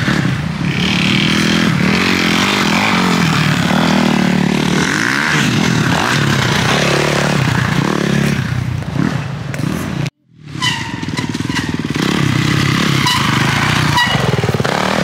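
Off-road dirt bike engines revving as several riders pass in turn, pitch rising and falling with the throttle. The sound cuts out abruptly about ten seconds in, then comes back.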